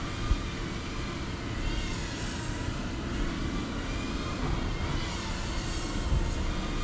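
Cinewhoop quadcopter's brushless motors and ducted propellers whining, several tones wavering up and down in pitch as the throttle changes, over a steady low rumble.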